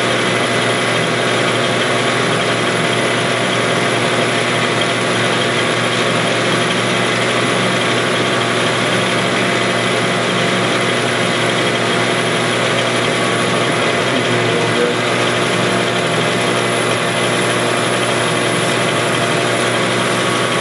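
Metal lathe running steadily with its spindle at about 600 rpm, the motor and gear train giving an even whine of several fixed tones.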